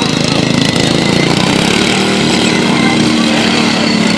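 Several racing lawn mower engines running at once on the track, their pitches shifting a little as they pass.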